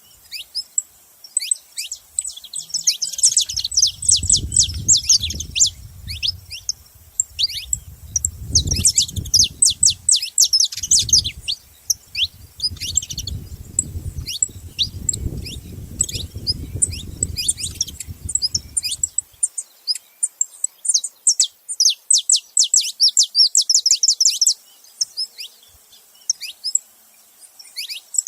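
Saffron finches chirping together in fast, high runs of short notes that come in bursts and pauses. A low rumble sits underneath for about the first two-thirds and then stops.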